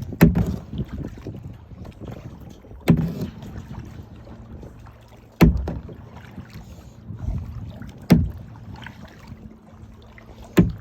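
Kayak paddling: five sharp knocks about every two and a half seconds, one per paddle stroke, over a low steady rumble of water against the hull.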